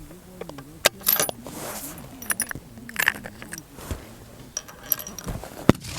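A string of sharp metallic clicks and clinks from a target rifle's action and cartridges being handled, the loudest about a second in and near the end.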